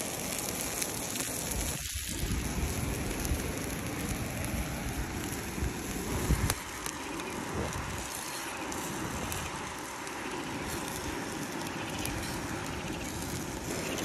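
Meatball patties sizzling on a natural stone slab heated by a wood fire, with the fire crackling beside it: a steady hiss dotted with small pops.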